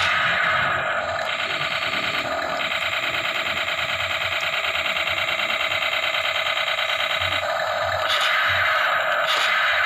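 Remote-control toy tank's built-in electronic sound effects playing through its small speaker as it drives. There is a fast, even pulsing from about a second in until near the end.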